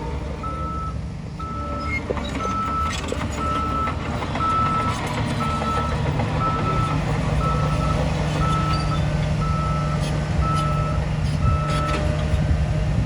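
Reversing alarm on a heavy earthmoving vehicle beeping about once a second, twelve times, then stopping near the end. Underneath is the steady rumble of its diesel engine.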